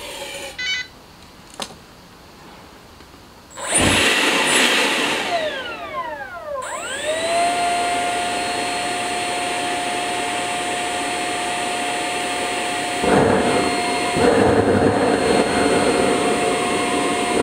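A 70 mm electric ducted fan on a valveless pulse jet starts with a loud rush about four seconds in, its pitch sweeping down, then settles into a steady high whine. Two louder bursts of rushing noise come over the whine near the end.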